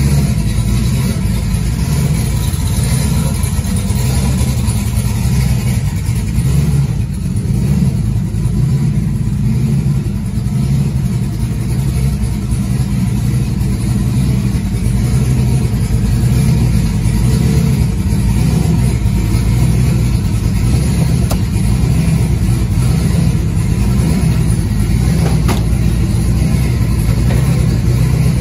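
Turbocharged LS V8 in a Camaro idling steadily at around 800 rpm, still warming up after a cold start.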